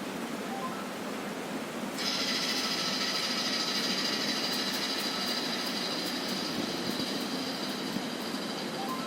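A small motor starts running with a steady high-pitched whine about two seconds in, over a constant hiss.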